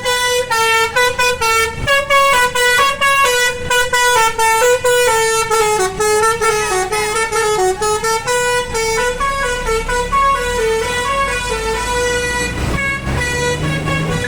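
Bus-mounted Basuri telolet horn, a multi-note musical air horn, playing a long tune of quick stepping notes. A low bus engine rumble builds in under it near the end.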